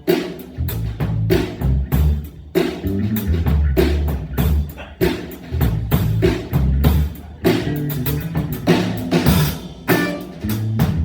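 A band playing an instrumental passage of a rock song: drum kit keeping a steady beat under a walking bass line and guitar, with no vocals.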